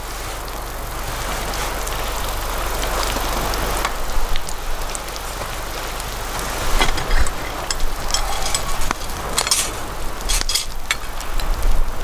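Okonomiyaki batter sizzling steadily in a hot Lodge cast iron skillet over a wood campfire. From about four seconds in, sharp crackles and clicks come through, densest near the end, as the fire pops and a spatula scrapes under the pancake.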